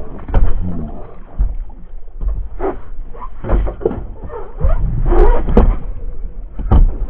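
Irregular knocks and thumps on a fishing boat's deck and hull as a landed jewfish (mulloway) is handled aboard, with a low rumble underneath. The loudest knocks come about five seconds in and again near the end.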